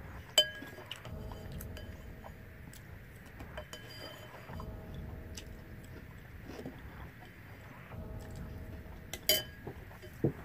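Pink plastic spoon clinking and scraping against a bowl while scooping cereal, a few sharp clicks with a short ring: the loudest about half a second in, two more near the end. Quiet chewing in between.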